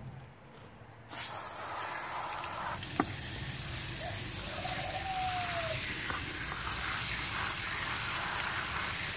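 Garden hose shower-spray nozzle switched on about a second in, spraying water into a bucket of wet potting soil with a steady hiss, filling it to turn the soil into mud.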